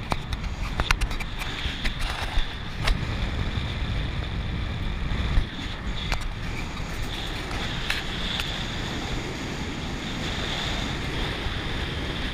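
A car driving along a gravel dirt road: a steady low rumble of tyres and engine with wind buffeting the microphone, and scattered sharp clicks and knocks, most of them in the first three seconds.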